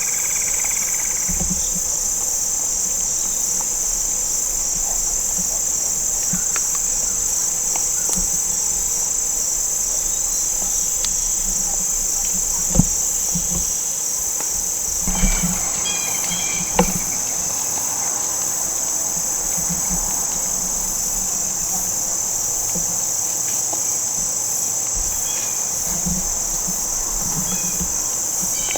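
Steady, high-pitched chorus of insects shrilling without a break. A few short, sharp knocks stand out briefly about halfway through.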